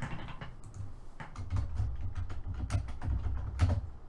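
Typing on a computer keyboard: an irregular string of key clicks with dull thuds under them.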